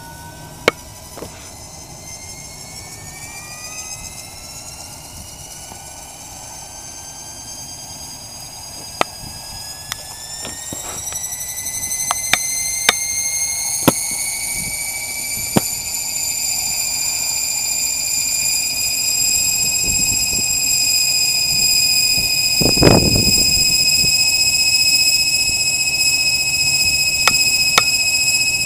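HK-600GT electric RC helicopter spooling up on the ground: the brushless motor and gear whine climbs steadily in pitch and loudness for about twenty seconds as the rotor head comes up to speed, then holds steady. Scattered sharp clicks, and a single low thump about three-quarters of the way through.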